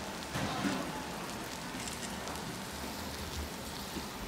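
Steak sizzling on a hot cast-iron serving plate, a steady hiss, with one brief louder sound about half a second in.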